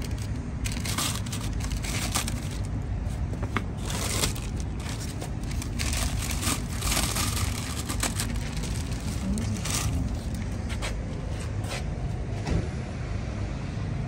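Plastic protective wrapping on a new motorcycle crinkling and crackling in irregular bursts, over a steady low background rumble.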